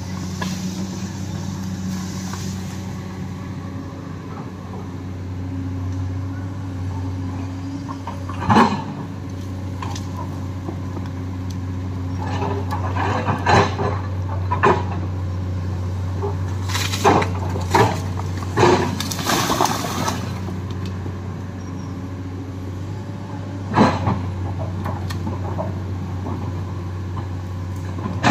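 Komatsu hydraulic excavator's diesel engine running steadily under load. Over it come a scattering of sharp cracks and knocks as the bucket digs into the earth bank and tears out a tree with its roots, the loudest about a third of the way in and again near the end.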